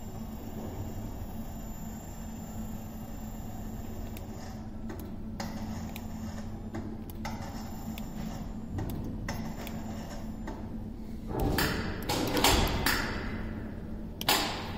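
Steady workshop hum while a diesel turbocharger is lowered onto its steel mounting bracket, with a loud rough scraping spell of about a second and a half near the end and then a single sharp metal clunk.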